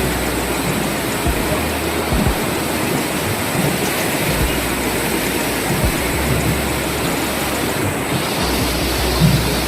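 Steady roar of a large waterfall, its falling water making a dense, even rush across all pitches.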